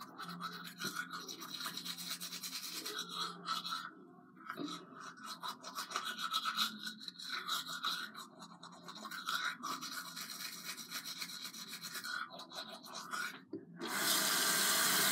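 Manual toothbrush scrubbing teeth in quick, uneven strokes. Near the end a bathroom sink tap is turned on and water runs steadily.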